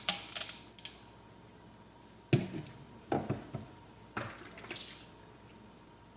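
Kitchen containers being handled while milk and cream are measured out: a quick run of clicks at the start, then three separate knocks of a measuring cup and containers being picked up and set down.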